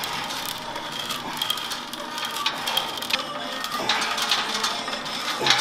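Cable pulley machine worked through rope triceps pushdowns: a steady mechanical whir from the cable running over its pulleys, with scattered clicks from the weight-stack plates.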